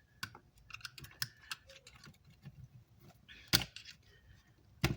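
Irregular light clicks and taps of small hand tools handled against an amplifier circuit board and the workbench, with two sharper knocks, one about three and a half seconds in and one near the end.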